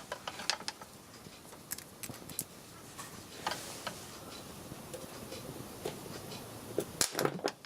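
Scattered sharp clicks and light scraping as a bit of copper is touched against an RCD trip module's circuit board to pass current through it. A brief hiss comes about three and a half seconds in, and a cluster of louder clicks near the end.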